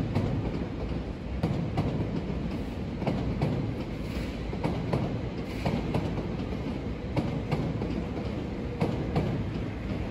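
Electric commuter train rolling across the station throat, its wheels clacking irregularly over rail joints and switches, about once or twice a second over a steady low rumble.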